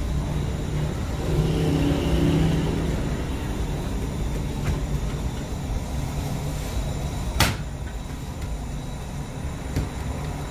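A steady low rumble of running bakery machinery, with one sharp knock about seven seconds in and a fainter one near the end.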